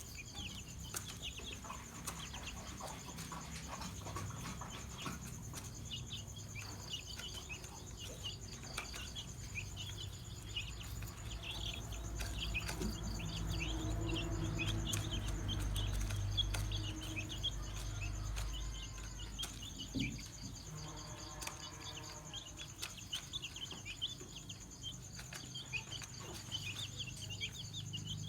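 Domestic chicken chicks peeping: many short, high chirps overlapping without a break. A steady high whine runs underneath, and a low rumble swells in the middle.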